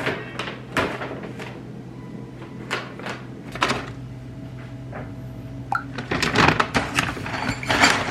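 A run of short knocks, clatters and rustles of household things being handled, denser near the end, over a faint steady low hum.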